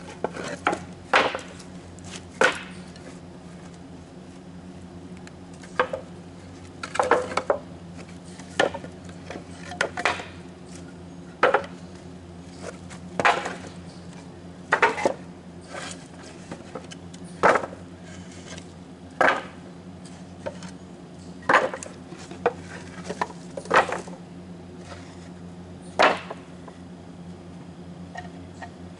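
Kindling being chopped: a blade striking and splitting wood in sharp knocks, roughly one every one to two seconds, some in quick pairs, over a steady low hum.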